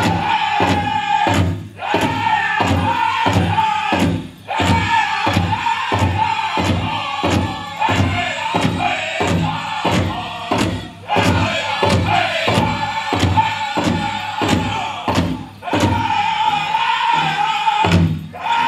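Powwow drum group playing a chicken dance song: a large drum struck in a steady beat under men singing in high voices. The drum and singing break off for a moment about four times, then carry on.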